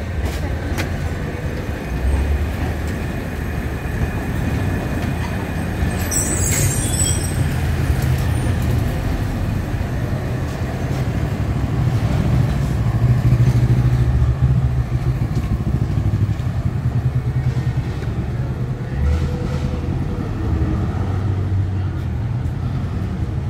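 City street traffic: a steady low rumble of trams and cars, loudest around the middle as a tram runs close alongside. A brief crackle about six seconds in.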